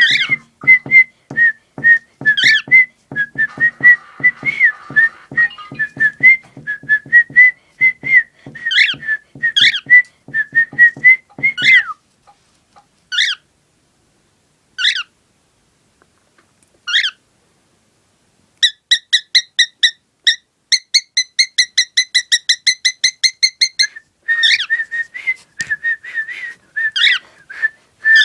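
Pet cockatiel whistling its song: a run of short warbled notes around one pitch over a regular low beat, then a few single whistles a second or two apart, then a fast string of about five repeated chirps a second, and warbling again near the end.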